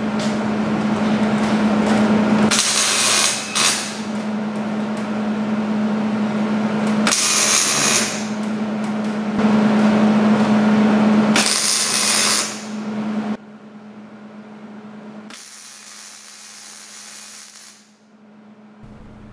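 Hobart wire-feed MIG welder tacking pieces of scrap steel together: a crackling buzz over a steady hum, with several brighter hissing stretches a second or two long. It drops quieter about two-thirds through, followed by one last tack.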